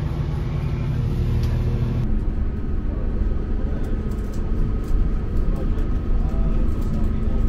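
Steady low rumble inside the carriage of a 4000 class diesel multiple unit standing at the platform, its underfloor diesel engine idling. About two seconds in the sound shifts and a thin steady whine joins the rumble.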